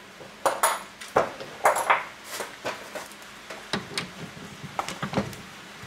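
Scattered metallic clinks and knocks of hand tools against the car's rear suspension as a wrench and an impact gun's socket are set onto the bottom strut bolt, a few of them ringing briefly.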